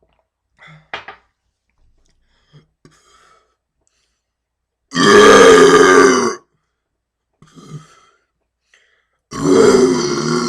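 A man burping loudly: one long belch of about a second and a half midway, then another starting near the end, with a few faint short clicks in between.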